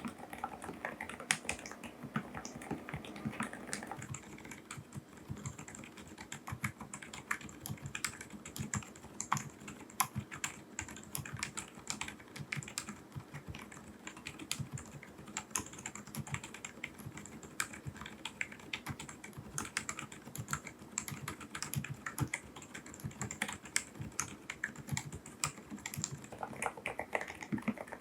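Continuous fast typing on a silent-switch mechanical keyboard: a steady patter of soft, damped key clicks.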